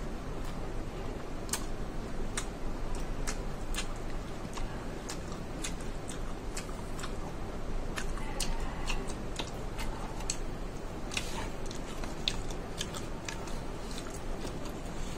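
Close-up mouth sounds of someone chewing a mozzarella corn dog: scattered, irregular wet clicks and smacks.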